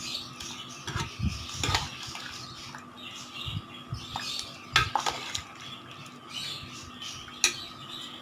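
Cooked snake gourd and chana dal being stirred in a pressure cooker with a metal utensil, with a few sharp clinks of metal on the pot a second or more apart.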